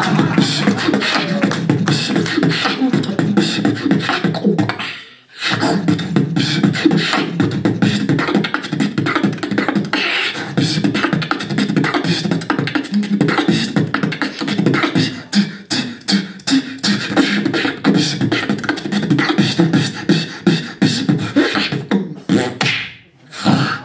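A beatboxer performing solo into a handheld microphone, amplified: a fast, dense stream of mouth-made drum sounds, with a short break about five seconds in and another near the end.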